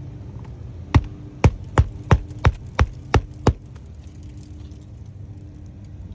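Hammer driving a roofing nail through an asphalt shingle into the roof deck: eight quick, sharp strikes at about three a second, starting about a second in.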